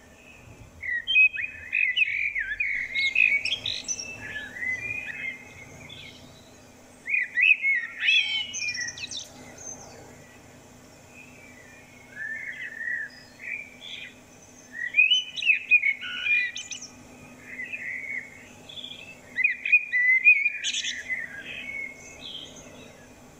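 Common blackbird singing: a run of warbling phrases, each one to four seconds long, about six in all with short pauses between them.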